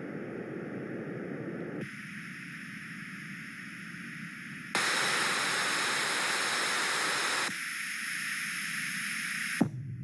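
Computer-generated noise from an online noise generator, switched between EQ presets in abrupt steps: a low-weighted hiss, then noise with its middle band cut out, then flat white noise about five seconds in, the loudest part, then the mid-cut noise again. Near the end a click comes as it switches to a deep, bass-heavy noise.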